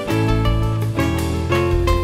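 Takamine TC135SC nylon-string guitar played fingerstyle: plucked melody notes changing about every half second over held bass notes.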